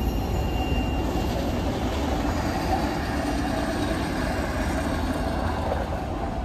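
Steady rumble of a high-rail truck rolling along the railroad track on its rail gear behind the receding freight train, easing off slightly toward the end.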